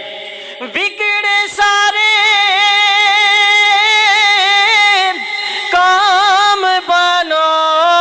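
A man's voice singing a naat into a microphone, drawing out long held notes with a wavering vibrato. The singing breaks off briefly about five seconds in and then goes on.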